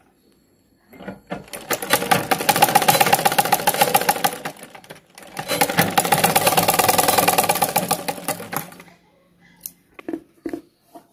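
Domestic sewing machine stitching in two runs of rapid, even clatter, each a few seconds long, with a brief stop between. A few light knocks and handling noises follow near the end.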